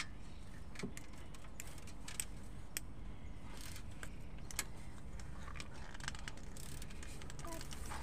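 Irregular metallic clinks and clicks of a hand tool working on engine bolts as the water pump's 12 mm bolts are undone, over a low steady background hum.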